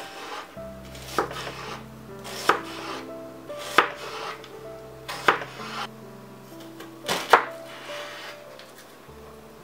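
Chef's knife slicing through a red onion onto a bamboo cutting board: a sharp knock of the blade on the board about every second and a half, six in all, the last two in quick succession.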